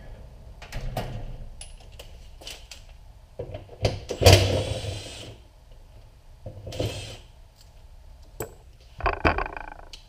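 Hand tools clicking and clattering as a 10 mm socket is picked from a tool rack and the bolts holding the rear hatch's pull handle are worked out. There is a loud metal rattle about four seconds in and shorter clatters near seven and nine seconds.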